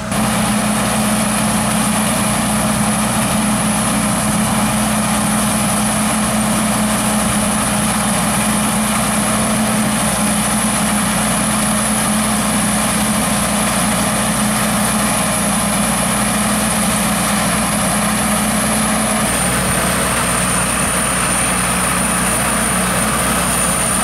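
Sakpattana KM AMT corn combine harvester running steadily as it works through standing corn: a continuous engine drone with a thin high whine on top. The tones shift slightly about nineteen seconds in.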